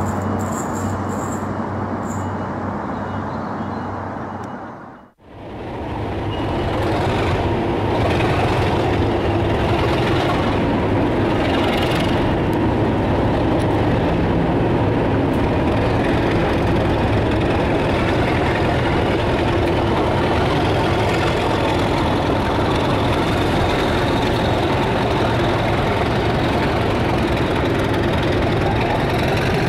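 Railway sound track: a train running fades out about five seconds in, then a diesel locomotive's engine fades in and runs steadily at a low, even hum.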